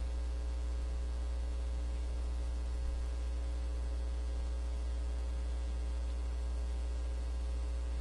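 Steady low electrical hum with a faint hiss, unchanging throughout, with no other sounds.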